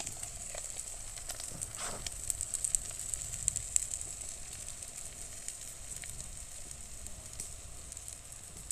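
Eggs and ham sizzling in a small frying pan held over a wood-burning camp stove, with the wood fire crackling in sharp snaps, thickest two to four seconds in.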